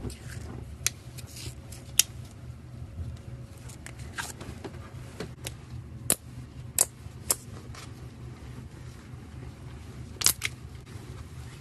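Slime being played with by hand, giving irregular sharp clicks and pops, about a dozen, over a steady low hum.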